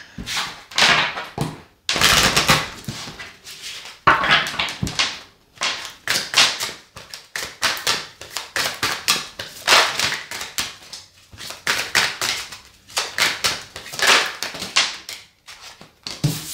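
Tarot cards being shuffled by hand: a continuous run of irregular papery swishes and flutters, several a second.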